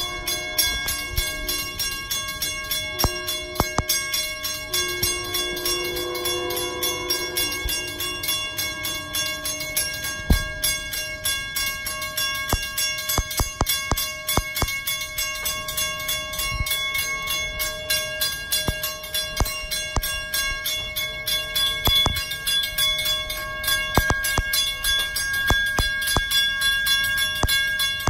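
Railroad grade crossing warning bell ringing rapidly and steadily. Over the first eight seconds or so, a distant train horn sounds several blasts of different lengths as a train approaches the crossing.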